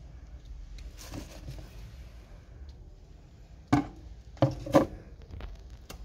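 Thin liquid paint pouring into a plastic bucket, with a short rush about a second in, then a small plastic container knocking against the plastic paint bucket three times as it scoops out the last of the paint.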